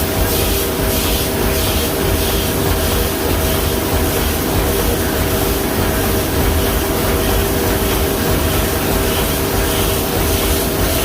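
Teeth of a large gear being ground: a steady, loud grinding noise with a constant hum, and a faint swish repeating at even intervals through it.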